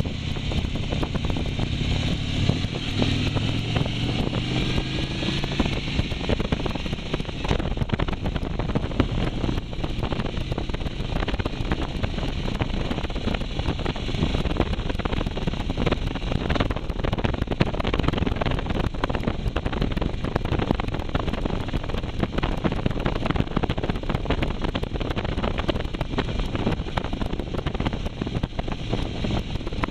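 Motorcycle engine accelerating, its pitch rising over the first several seconds, then a steady rush of wind buffeting the microphone at riding speed.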